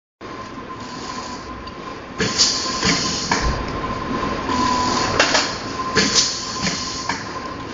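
Automatic sachet filling and packing machine running: a steady mechanical whirr with a thin steady tone, and repeated sharp clacks of its sealing and cutting jaws, roughly once or twice a second, louder from about two seconds in.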